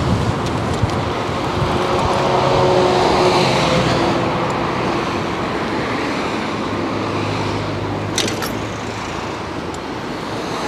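Road traffic on the busy road beside the bike path: a steady rush of passing cars, loudest about three seconds in, over wind noise on the microphone. There are a couple of short clicks about eight seconds in.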